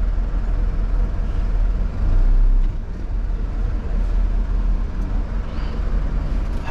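Mitsubishi Fuso Canter's diesel engine running at low speed, heard from inside the cab as the truck creeps forward, with a brief swell in level about two seconds in.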